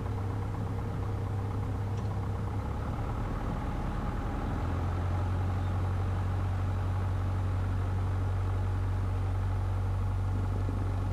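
Cessna 150's four-cylinder air-cooled Continental O-200 engine running at low taxi power, a steady low hum heard from inside the cabin. The engine note shifts slightly about four and a half seconds in.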